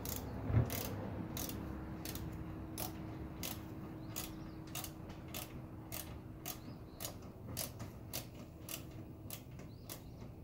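Ratchet clicking steadily, about three clicks a second, as a bolt is turned at the car's front bumper, with one heavier thump about half a second in.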